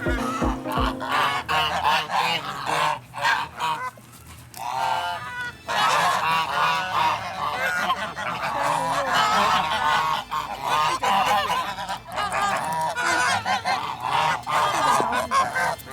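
A flock of domestic geese honking loudly, many overlapping calls, with a brief lull about four seconds in. The geese are crowding and competing for grass being hand-fed to them.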